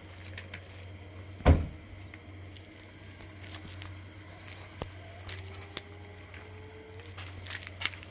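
Night insects, crickets, chirping in a steady pulsing trill, about five pulses a second, over a low steady hum. A single dull thump about one and a half seconds in is the loudest sound.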